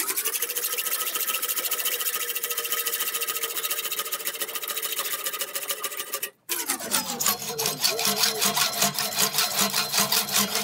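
Hand hacksaw cutting through a brass bar about a quarter inch (6 mm) thick held in a vise: steady back-and-forth sawing strokes with a ringing tone from the metal. The sound breaks off for a moment about six seconds in, then the sawing carries on.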